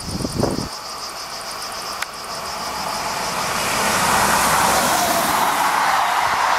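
SNCF BB 22200-class electric locomotive BB 22298 hauling RRR regional coaches past close by. Its wheel-and-rail rush swells over the first few seconds and stays loud as the coaches go by.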